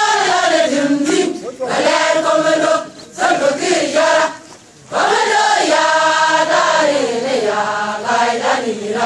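A group of voices singing together outdoors, in long held phrases with brief breaks.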